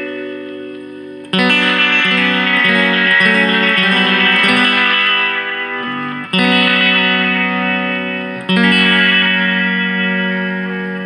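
Electric guitar chords played through a Watkins Copicat Mk1 tape echo on its position 3 setting. Three chords are struck, about a second in, at about six seconds and near eight and a half seconds, each followed by echoes that ring on and fade away.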